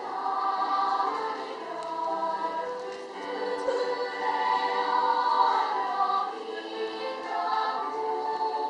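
Children's choir singing in several parts, sustained notes shifting in pitch.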